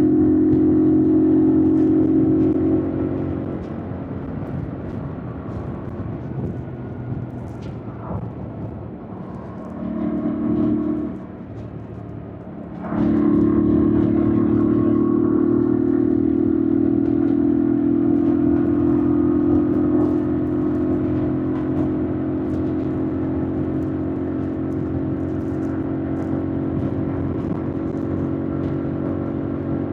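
2025 Yamaha MT-07's 689 cc parallel-twin engine under way: loud at a steady pitch for about three seconds, quieter for several seconds apart from a short loud burst around ten seconds in, then loud again from about thirteen seconds in and slowly easing.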